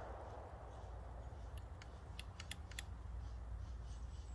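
The echo of a 300 Blackout AR pistol shot fading away at the start, then a faint low rumble with a handful of small, sharp clicks between about one and a half and three seconds in.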